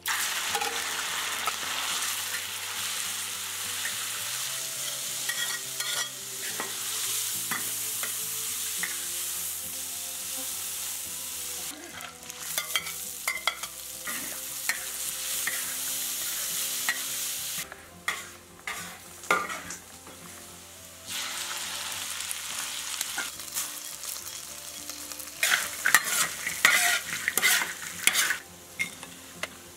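Rabbit meat frying in hot oil in a large wok: a loud, even sizzle from the first moment as the meat goes in, stirred with a metal spoon. Later, with chopped dried chillies in the wok, the frying goes quieter for a few seconds, and near the end it carries quick sharp scrapes and clacks of the metal spoon against the wok as the pieces are tossed.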